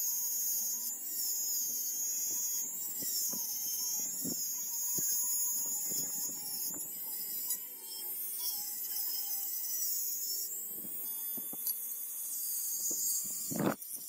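Handheld electric rotary tool running at high speed, its bit pressed against a rusty steel shotgun part. The high-pitched whine wavers up and down as the load on the bit changes, with light taps of the bit on the metal and a louder knock near the end.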